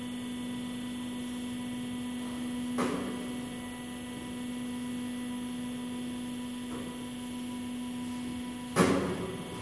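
Lid-lift drive of a vacuum homogenizer emulsifying mixer humming steadily as the mixing lid lowers onto the kettle. There is a small click about three seconds in and a sharp clunk near the end, after which the hum drops away.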